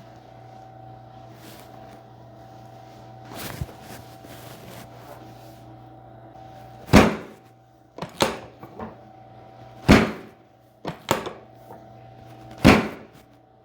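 Sharp knocks and cracks from a chiropractic adjustment: about six of them, irregularly spaced, the first fainter and the rest loud, over a steady low hum.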